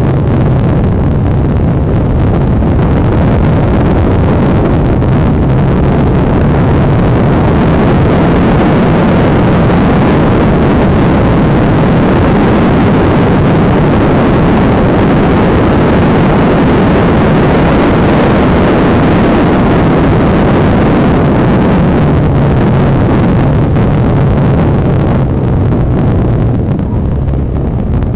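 Honda NX650 Dominator's single-cylinder engine running at road speed under heavy wind rush on the microphone, easing off near the end.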